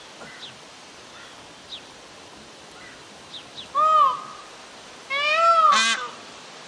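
Peafowl calling: two loud, wailing calls that rise and fall in pitch, the first short at about four seconds in, the second longer about a second later, with a brief rattling note near its end.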